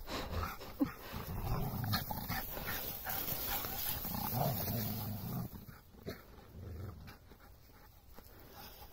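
Two dogs, an Australian Shepherd and a Rhodesian Ridgeback puppy, growling at each other in rough play. The low growls come in two spells, about a second in and again around four to five seconds in, then die down near the end.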